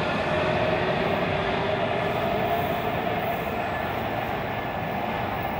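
Washington Metro electric train pulling out of the station into the tunnel, its running noise and a steady whine slowly fading as it moves away.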